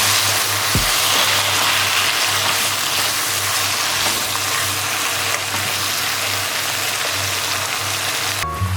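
Steady hiss of kitchen cooking noise under soft background music with a low bass line; the hiss cuts off suddenly near the end.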